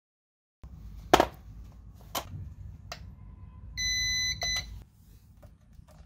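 A few sharp plastic clicks, the loudest about a second in, then a CyberPower UPS beeping: one beep of about half a second and a shorter one right after it.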